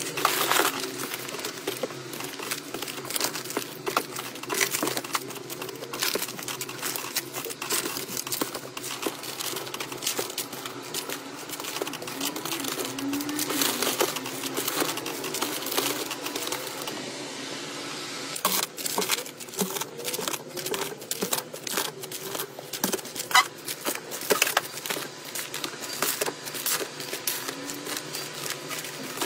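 Plastic-wrapped soft packs of facial tissue crinkling, with soft knocks as they are handled and pushed into place on a cabinet shelf. It is a dense, uneven run of small crackles and taps.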